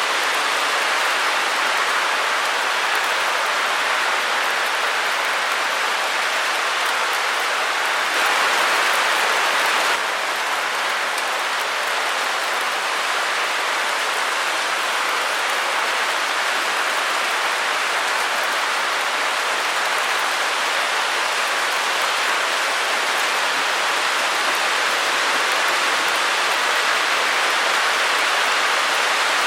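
Steady electronic white noise: an even hiss, strongest in the upper middle and treble with little bass, that is a little louder for a couple of seconds about eight seconds in.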